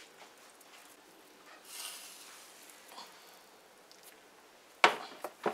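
A baking dish holding a metal bundt pan is handled out of the oven. There is a soft scrape about two seconds in, then two sharp knocks about half a second apart near the end as the dish is set down on the glass stovetop.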